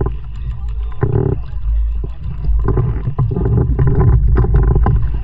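Kayak paddling on water: irregular splashes and knocks from paddle strokes over a heavy, continuous low rumble.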